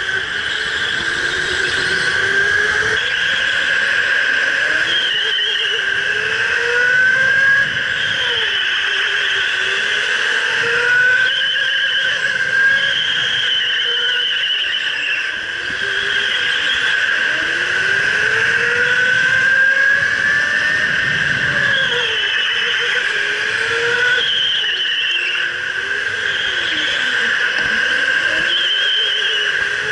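Electric indoor go-kart's motor whining. Its pitch climbs as the kart accelerates and drops as it slows into the turns, rising and falling every few seconds.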